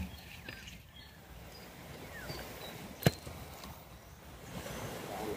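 Quiet shoreline ambience, an even outdoor hiss with faint water and small ticks from the gill net being handled, broken by one sharp knock about three seconds in.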